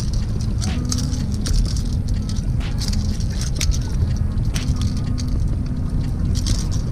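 Wind buffeting the microphone, a steady low rumble, with scattered sharp clicks over it.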